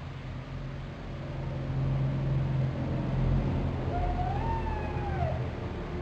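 A young tanuki (Japanese raccoon dog) gives one whining call about four seconds in, rising and then falling in pitch: a lonely call. A steady low rumble runs underneath and is loudest in the middle.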